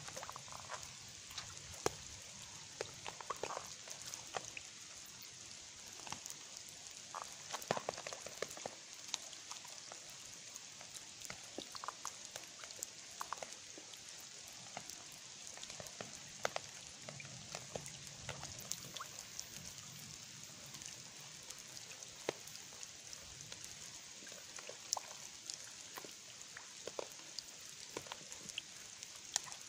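Light rain falling and dripping onto wet pavement and puddles: a steady soft hiss with many scattered drop ticks.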